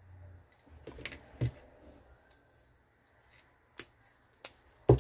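Hand pliers squeezing a wire splice connector, with light handling of the wires and a few small clicks, then two sharp clicks near the end.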